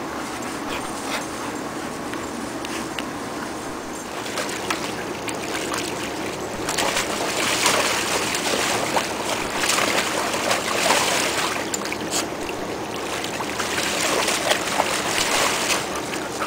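Water splashing and sloshing in a plastic kiddie pool as a Siberian husky paddles and plays in it, with many quick splashes. It starts and grows louder about a third of the way in, after a steady background hiss.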